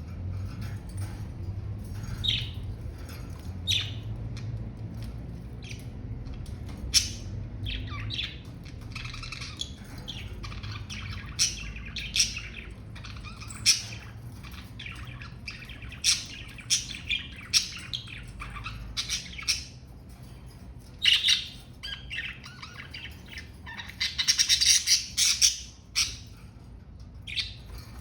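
Budgerigars chirping in short, high calls scattered throughout, with a dense burst of warbling chatter near the end.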